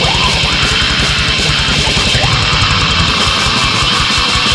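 Black metal demo recording: distorted electric guitars over fast drumming with a rapid, steady kick drum.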